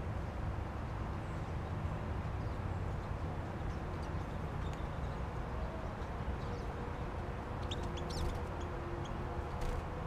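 Small songbirds at a seed feeder giving a few faint, quick high chirps, bunched about eight seconds in, over a steady low outdoor rumble; a single sharp tap near the end.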